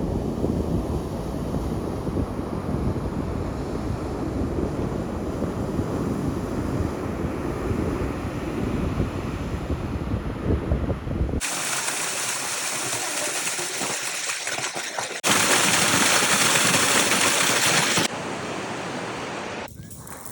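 Nature recordings cut together. First comes a low, rumbling rush of noise. After a cut about eleven seconds in, a steady high hiss of rushing water takes over, much louder for a few seconds from about fifteen seconds in.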